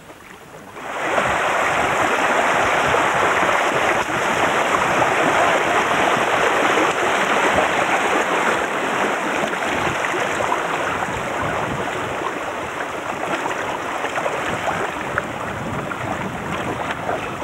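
Shallow river water rushing and splashing over rapids around a bamboo raft as it is poled downstream, a steady dense hiss that starts abruptly about a second in.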